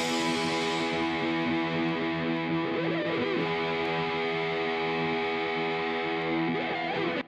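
Background music: one long held chord with no beat, cutting off suddenly at the end.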